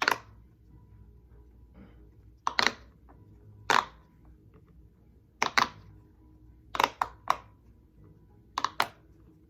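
Fidget toys being handled on a hard surface: scattered sharp clicks and taps at irregular intervals, some in quick pairs.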